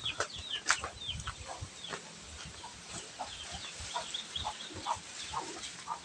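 Chickens clucking: a scatter of many short, high, falling chirps, with a few light knocks among them.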